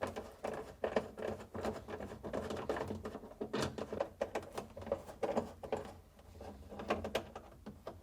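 A 1/4-inch nut driver turning screws out of a refrigerator's plastic water filter compartment: a busy, irregular string of small clicks, ticks and scrapes.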